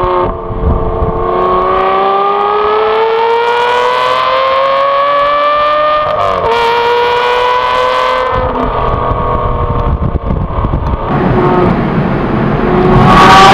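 Modified Aston Martin V12 Vantage S V12 engine and exhaust under hard acceleration, the pitch climbing steadily through a gear. About six seconds in there is a brief dip at an upshift before it climbs again. It then eases to a lower, steadier note and grows much louder near the end.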